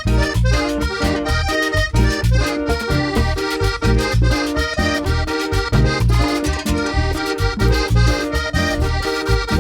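Live cumbia from a chanchona band in an instrumental break: accordion playing the melody over a steady, pulsing bass and percussion beat.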